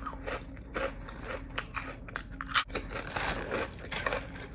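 Close-up chewing of a crunchy snack: irregular crisp crunches and mouth clicks, with one sharp crunch about two and a half seconds in.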